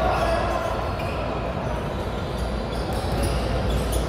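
Basketball game sounds in a large, echoing gym: a ball bouncing on the hardwood and a few short sneaker squeaks over steady crowd noise.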